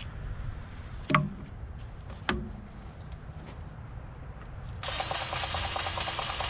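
Two sharp clicks, then a battery-powered grease gun's motor starts suddenly near the end and runs with a fast, even pumping rattle as it forces grease into a fitting on the excavator's boom.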